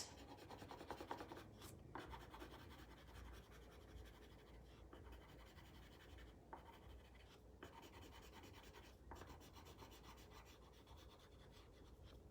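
Faint scratching of colored pencils on paper: quick, even shading strokes as a template is coloured in.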